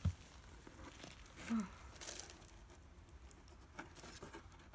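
Soft handling noises in a cardboard box with plastic packaging: a knock at the start, then faint scattered rustles and ticks.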